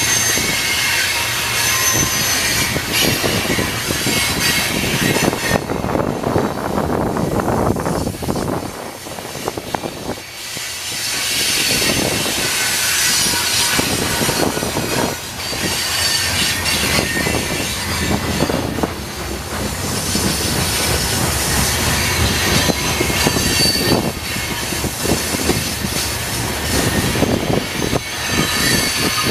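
Steel-wheeled coal hopper cars of a CSX freight train rolling steadily past, their wheels clicking and knocking over the rail joints, with short high-pitched wheel squeals coming and going. The sound dips briefly about ten seconds in.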